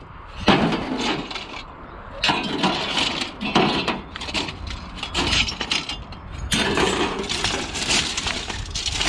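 Scrap metal and debris being rummaged through and pulled out of a pile: irregular clattering and clanking of aluminium pieces knocking against other junk.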